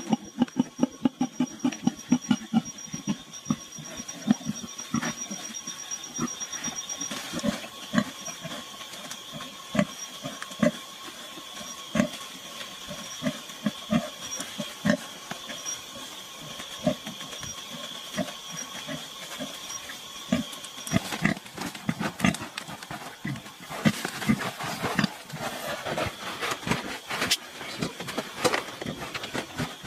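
Sow grunting in short, repeated grunts while her newborn piglets suckle, with some rustling near the end.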